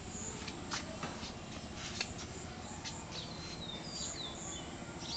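Small birds chirping: a quick string of short, high chirps that fall in pitch, about three to four and a half seconds in, with a few scattered clicks.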